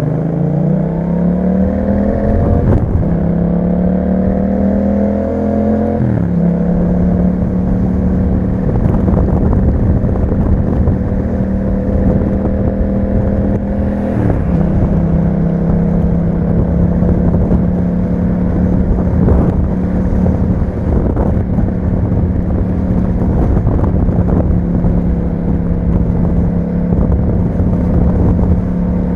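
A 2021 Yamaha MT-07's 689 cc parallel-twin engine through an Akrapovic exhaust, heard from the bike while riding. The revs climb for the first six seconds, drop with an upshift, and then hold steady at cruising speed, with one brief dip about fourteen seconds in.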